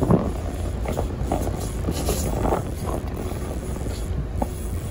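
Steady low rumble of wind and a boat's engine at sea, with scattered brief splashes and knocks as a fish is reeled in on a rod.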